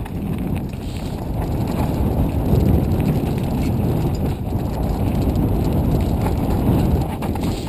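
Mountain bike riding on a trail: wind rumbling on the camera microphone, with tyre noise and rattles from the bike over rough ground, getting louder about two seconds in and easing near the end.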